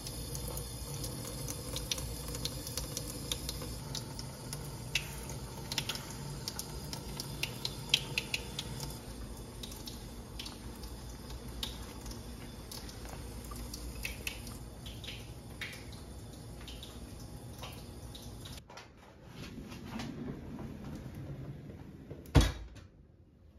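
Water running steadily from a kitchen tap into a sink, with scattered light clicks. The water sound cuts off abruptly about three-quarters of the way through, leaving quieter room sound and then one sharp knock near the end.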